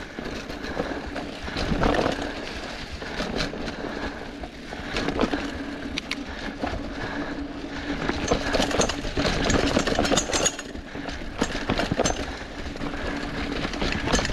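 Mountain bike rolling along a dirt trail covered in dry leaves: tires crunching through the leaves, with the bike rattling and knocking over bumps and a steady hum underneath.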